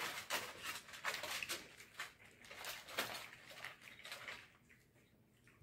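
Tortilla chips crunching and crackling as they are chewed and picked from the pile, an irregular run of sharp crunches that dies away about four and a half seconds in.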